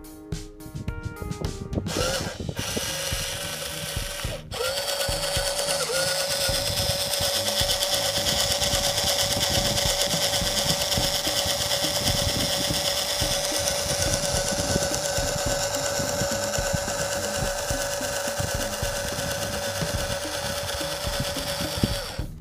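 The small electric motor and gearbox of a homemade RC toy truck running with a steady whine. It cuts out briefly twice in the first few seconds, then runs on.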